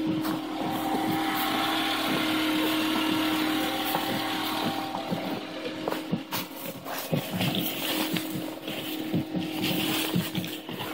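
Snow being pushed and brushed off a car's windshield by a gloved hand, with irregular scraping and crunching, over a steady hum from the 2009 Volkswagen Jetta idling after its cold start.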